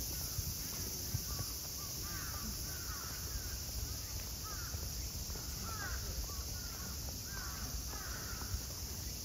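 Crows cawing over and over, several short calls a second from more than one bird, over a steady high-pitched background hiss.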